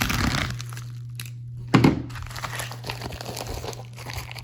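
Shipping package being torn open, its packaging crinkling and rustling, with a sharp knock or thump about two seconds in.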